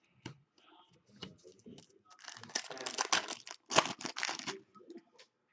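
Hockey card pack wrapper crinkling as it is handled, with scattered light clicks before and after a crackling stretch of about two and a half seconds in the middle.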